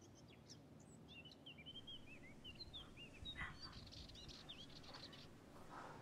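Faint birdsong: small birds chirping in quick, short rising and falling notes, with soft rustles of movement about halfway through and near the end.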